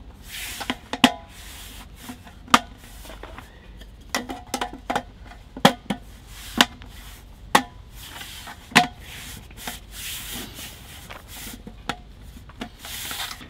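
Sharp clicks and knocks of a folding camp table's metal top plates and frame being pressed and handled, about one every second or so, some with a short metallic ring, with soft rustling in between.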